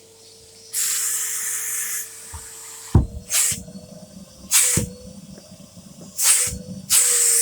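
Hissing spray bursts: one longer burst about a second in, then three or four short ones, each with a soft thump at its start, over a faint steady hum.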